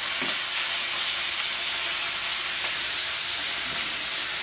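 Raw bacon slices sizzling steadily in a very hot frying pan as they start to fry, an even high hiss.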